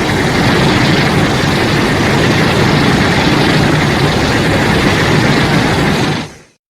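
Explosion sound effect in its long rumbling tail: a loud, steady, noisy rumble that fades out quickly about six seconds in.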